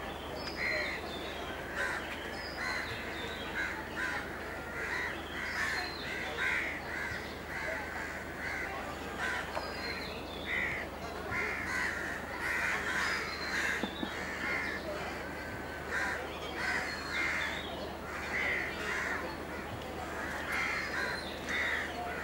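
A flock of birds calling, with short calls following one another without a break, over a steady low hum.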